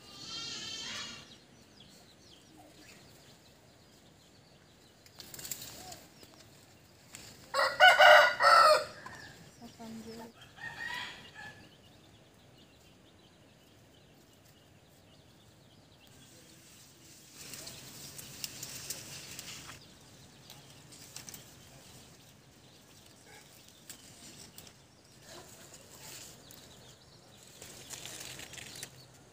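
A rooster crowing once, loudly, about eight seconds in, with shorter, fainter calls near the start and a few seconds after the crow. A softer stretch of hiss with a faint low hum follows later.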